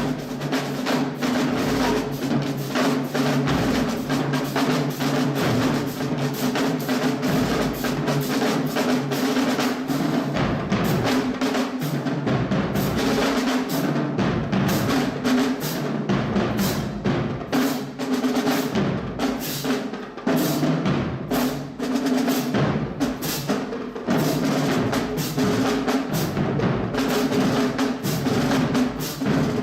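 Marching band music driven by drums: a fast, dense run of drum strokes over sustained low pitched notes.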